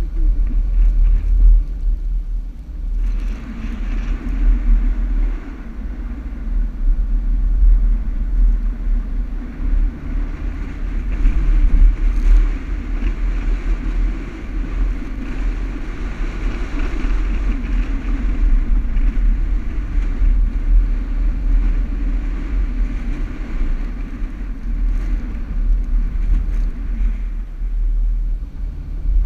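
Toyota Land Cruiser driving over desert sand: a steady low rumble of engine and tyres that swells about three seconds in and eases near the end.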